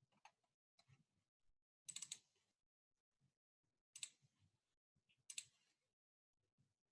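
Near silence broken by a few faint computer clicks: a quick cluster about two seconds in and single clicks about four and five and a half seconds in.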